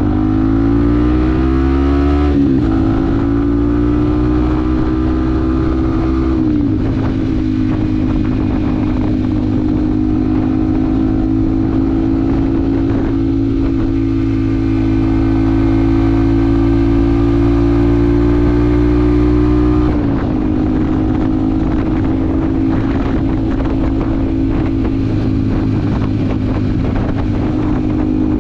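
Yamaha WR155R's single-cylinder four-stroke engine under way, pulling through the gears. The revs climb and drop back at upshifts about two and a half and six and a half seconds in, then hold steady at cruising revs, easing off a little about twenty seconds in.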